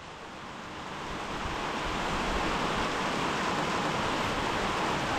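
A steady rushing hiss with no tone in it, growing louder over the first two seconds and then holding level.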